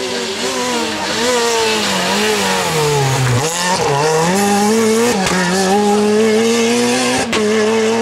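Renault Clio rally car's engine at full stage pace. It drops in pitch as the car brakes and downshifts for a bend about three seconds in, then rises again through quick gear changes as it accelerates away.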